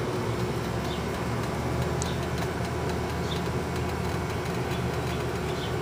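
A steady low mechanical hum and rumble that holds even throughout, with a few faint short high chirps over it.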